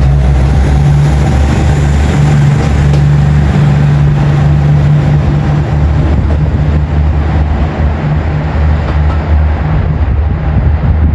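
Cummins diesel engines of a KiHa 85 series diesel railcar train running under power as the train moves off, a loud steady low engine drone that eases a little after about six seconds as the last car recedes.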